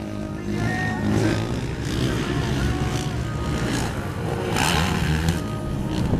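Two racing ATV quads' engines revving up and easing off as the riders work the throttle, the pitch rising and falling.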